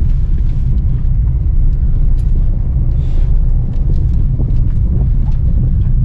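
Steady low rumble of a car driving, heard from inside the cabin: engine and tyre noise, with a few faint ticks.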